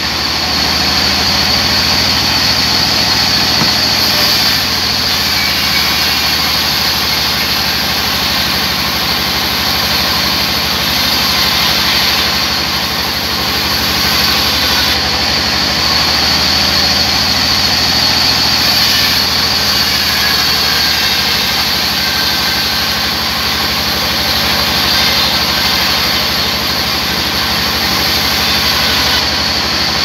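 Large sawmill band saw running steadily while ripping a thick wooden plank fed by hand through the blade: a continuous high whine over a low motor hum.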